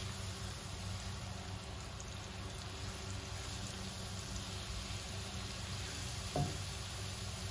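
Minced garlic frying gently in oil in a wok, a steady soft sizzle while the garlic is still pale, over a low steady hum. There is a brief tap about six seconds in.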